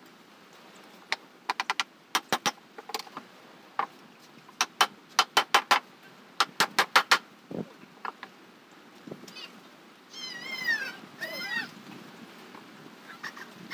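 Hammer blows on metal, most likely driving nails into boat timber, in quick runs of two to six ringing strikes. Near the end come two short animal calls that rise and fall in pitch.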